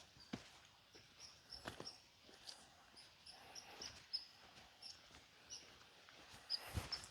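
Quiet woodland ambience: short, high chirps repeat irregularly throughout, with a few soft footsteps on the riverbed.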